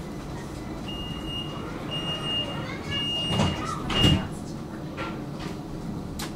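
Tram door-closing warning: four high beeps while the sliding doors close with two heavy thuds, the second thud the loudest, over the tram's steady low hum.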